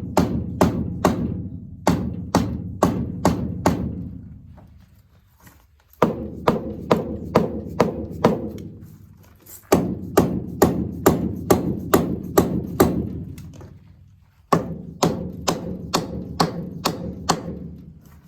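Dead blow hammer tapping a Rumely 6A tractor's cylinder head to break it loose from the rusted head gasket. The taps come quickly, about two or three a second, in four runs of eight to ten. Each run leaves a low ringing that fades out before the next run begins.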